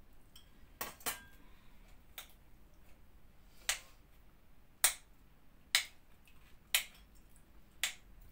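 A spoon clinking against a glass bowl as margarine is mashed and stirred in it: about eight sharp clinks at uneven intervals, roughly one a second.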